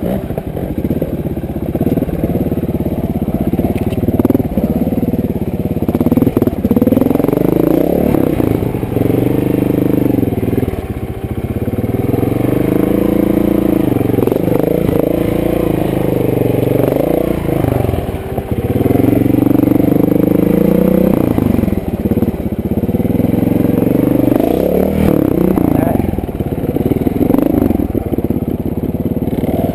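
Trials motorcycle engine revving up and falling back over and over in short bursts of throttle as the bike climbs over rocks and dirt.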